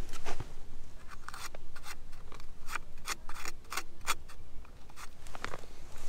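A quick run of short scrapes and clicks, several a second and densest through the middle, as an ice-glazed front door and its lock are worked on to open it.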